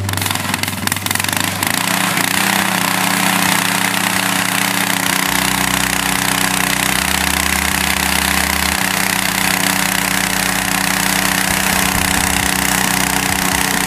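Mini bike's small single-cylinder engine running steadily and loud, close by.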